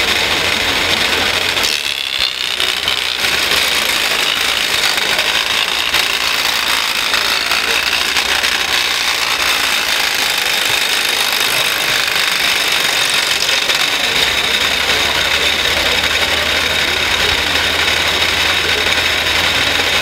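Truck-mounted scale RC wood chipper running at speed, chewing wood and blowing chips out through its chute into a trailer, with a steady high whine over dense mechanical noise.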